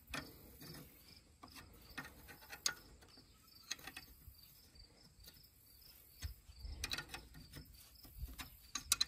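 Scattered light metallic clicks and taps of an open-end wrench fitted onto and turning a fuel-line fitting on a diesel injector pump, with crickets chirping faintly and steadily in the background.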